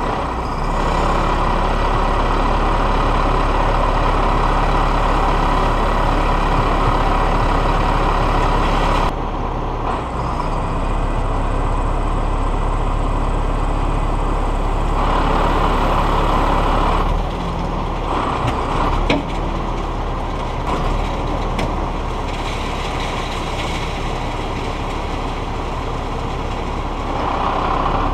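Heavy wrecker's diesel engine running steadily under load while its winches pull a rolled dump truck upright. The engine level shifts a couple of times, and a single sharp knock comes partway through.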